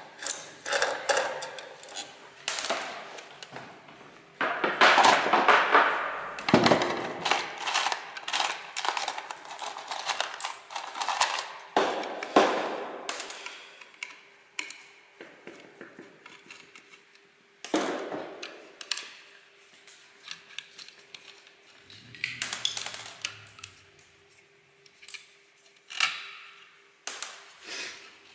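Hand tools and metal parts clinking, clattering and rattling in irregular bursts while a piece of electronic equipment is unbolted and taken apart. The densest clatter comes about five seconds in, with a faint steady hum underneath.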